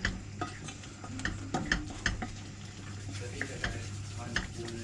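A spoon stirring food in a cooking pot, knocking and clinking against the pot at irregular moments, with a faint sizzle underneath and a steady low hum.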